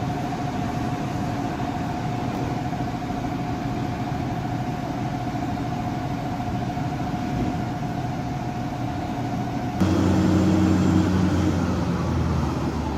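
A heavy vehicle's engine running steadily, with a constant high whine over it. About three-quarters of the way through, the sound suddenly gets louder, with a deeper, even engine drone.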